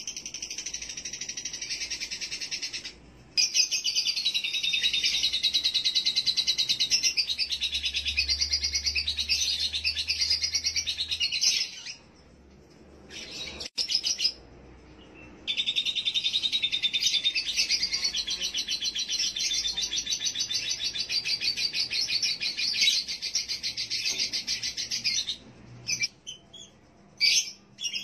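A male lovebird singing its long, rapid, high-pitched chattering trill, the 'konslet' ngekek song, in two long unbroken runs of about eight and ten seconds with a short break between them. It is a lure recording of an aroused male, meant to bring other males into breeding condition.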